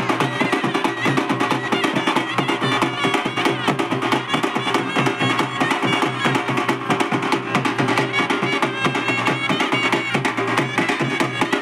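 Festival band music: fast, dense drumming with a sustained melody line played over it, continuous and loud.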